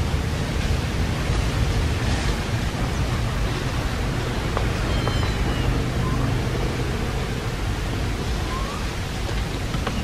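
Steady rushing noise, mostly a low rumble, with no clear event standing out.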